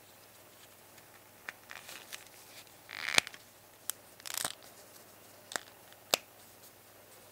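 Small rubber tyre being worked onto a scale-model car wheel rim by gloved fingers: two short rubbing scrapes and several sharp clicks, the loudest a little over three seconds in.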